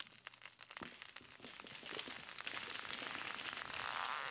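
Douglas fir giving way at its felling cut and falling: a rapid run of sharp cracks and splintering that builds into a rushing crash of branches through the canopy, growing louder toward the end.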